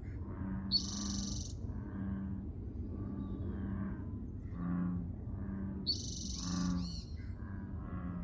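An unidentified noise, taken by the listener for a possible animal: short low-pitched pulses repeating about once or twice a second, with a brief high-pitched squeal about a second in and another near the six-second mark.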